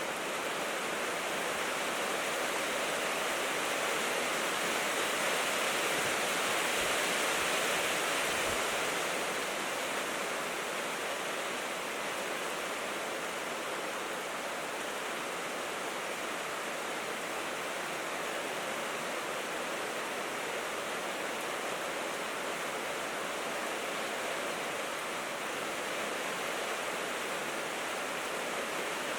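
Steady rain falling on a corrugated tin roof, an even hiss of drops. It swells slightly a few seconds in, then eases back to a constant level.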